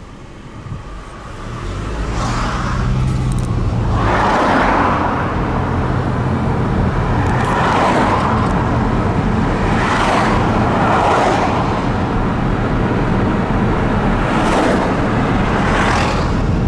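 Car driving at speed, its engine and road noise steady, picking up about two seconds in, with repeated swells of rushing noise every few seconds.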